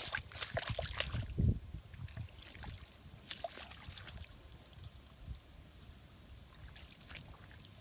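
Footsteps splashing and squelching through shallow standing water and mud, close and frequent for the first second and a half, then sparser and fainter.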